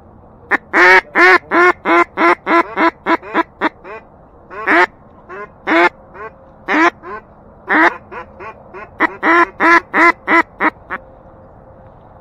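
Mallard duck call blown in a hen mallard cadence. A long run of loud quacks speeds up and fades, then single and softer quacks follow, then another run near the end, calling to ducks flying close by.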